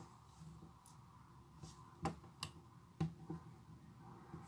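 Light hand-handling noise on a desk: three sharp little clicks about two to three seconds in, with fainter taps around them, as fingers work a slab of play dough.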